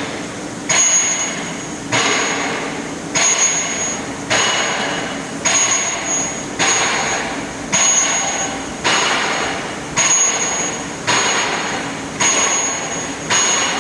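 6-axis CNC pipe plasma cutting machine running as a cut starts. A sharp, hissing burst comes about once a second, each fading away before the next, in a steady repeating rhythm.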